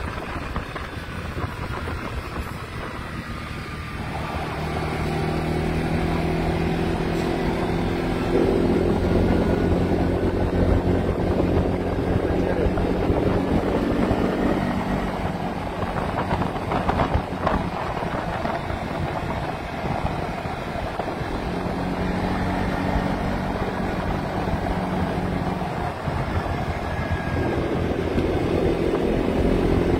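ATV engine running under way. Its note strengthens about four seconds in, then eases off and comes back a couple of times. Steady rushing wind noise sits under the engine throughout.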